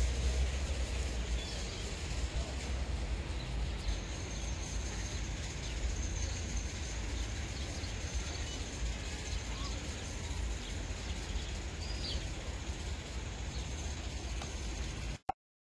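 Steady outdoor background noise: a low rumble with a faint high whine, and an occasional faint short chirp.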